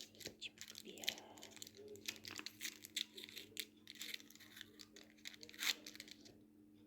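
Butter paper crinkling and crackling as hardened ginger candies are peeled off it, in irregular small clicks and rustles that stop shortly before the end.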